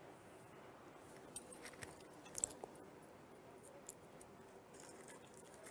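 Near-quiet room with a few faint soft clicks and crackles, the sharpest about two and a half seconds in, as a person shifts and turns over on a bed.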